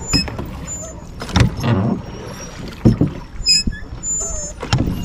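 Oars working in the metal rowlocks of a wooden rowing boat, giving a knock with each stroke, three times about a second and a half apart, over the wash of the water.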